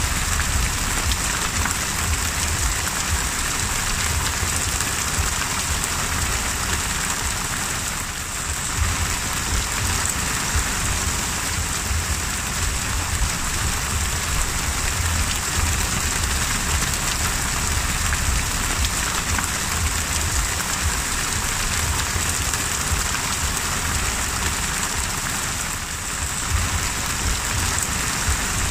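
Heavy rain pelting the open sea surface: a dense, steady hiss with a low rumble underneath.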